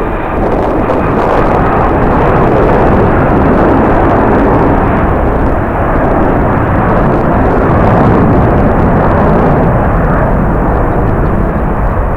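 Jet airliner engine noise, loud and steady, mixed with strong wind rumbling on the microphone.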